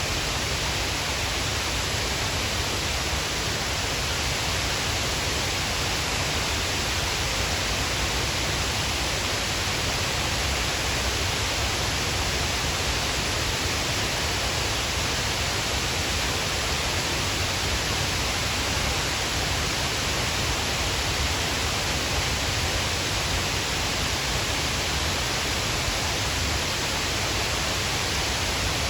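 Shiraito Falls, a broad curtain of many thin streams of water dropping over a cliff, pouring in a steady, even rush with no let-up.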